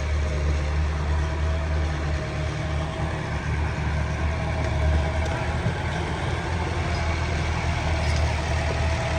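Tractor engine running steadily while it drives a rotavator (rotary tiller) through hard, stony soil. It makes a low, even drone with a faint steady whine above it.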